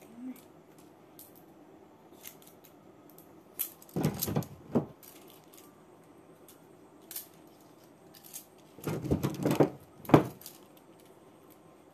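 Bangles clinking and jangling as the wearer moves her arms, in two bunches of sharp clicks: about four seconds in, and again from about nine to ten seconds in.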